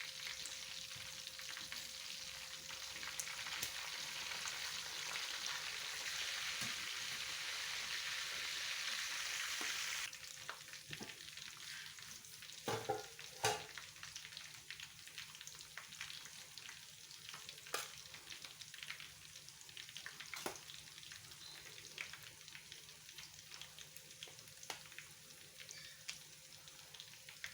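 Pot of jollof rice cooking down on the stove, its tomato-and-oil liquid drying out: a steady sizzling hiss that drops off suddenly about ten seconds in, leaving a quieter crackle. A few sharp knocks come partway through.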